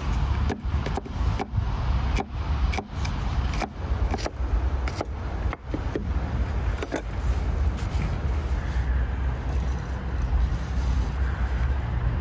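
Chef's knife chopping green chili peppers on a wooden cutting board: a string of sharp chops, about two a second, stopping about seven seconds in, over a steady low rumble.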